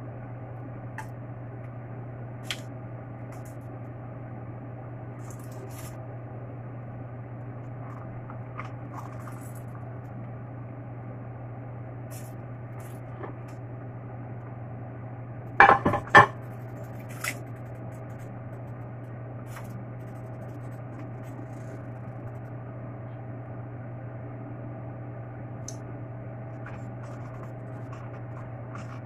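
A glass pot lid clanking against a nonstick frying pan: a quick cluster of sharp clinks about halfway through, with a few light ticks of utensils against the pan elsewhere. A steady low hum runs underneath.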